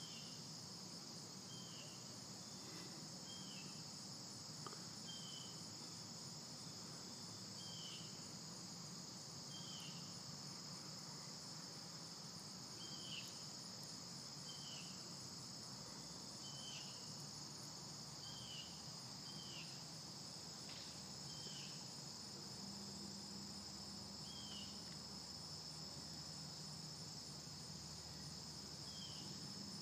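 Steady, high-pitched night insect chorus of crickets trilling, with short chirps that repeat irregularly every second or two over it.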